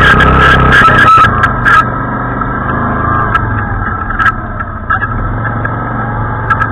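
ATV engine running under way, with a low engine hum and a steady high whine over it. Scattered clicks and knocks through it, thickest in the first couple of seconds, after which it gets a little quieter.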